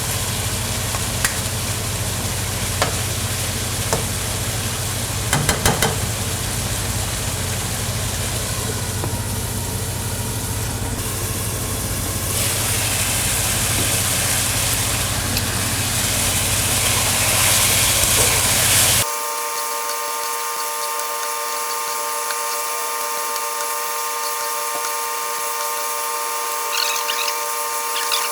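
Chicken karahi sizzling as it fries in a pan, with a few clicks of stirring about five seconds in. About two-thirds of the way through, the sizzle cuts off abruptly and gives way to a steady hum of several held tones.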